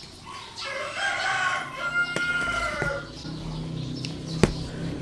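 A rooster crowing once, one long call of about two and a half seconds that falls away at the end, followed by a single sharp click.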